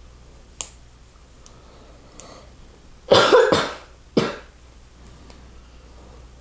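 A person coughs twice, a longer cough about three seconds in and a shorter one a second later, over faint clicking of plastic Lego pieces.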